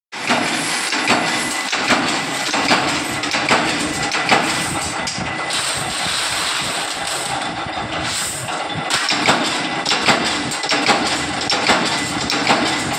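A heap of flat steel washers in a sheet-metal tray being stirred and scooped by hand: continuous metallic clinking and rattling, with a stronger knock a little more than once a second.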